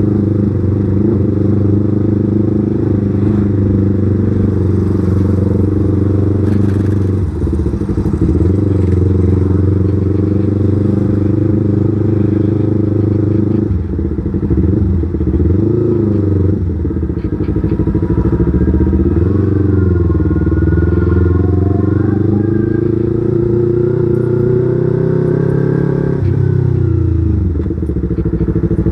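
Yamaha R25 motorcycle's 250 cc parallel-twin engine running while riding, its note dropping and climbing again several times as it changes speed.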